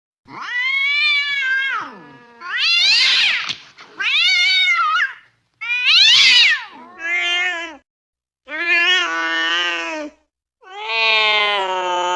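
Domestic cat meowing, seven meows in a row with short pauses between them, several rising then falling in pitch; the last, starting near the end, is long and drawn out.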